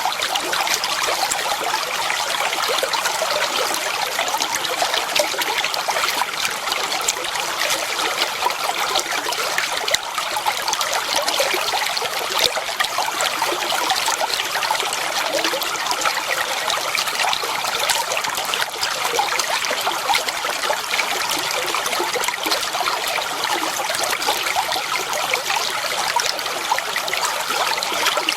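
Clear water flowing and trickling steadily, a continuous splashing babble like a small stream running over stones.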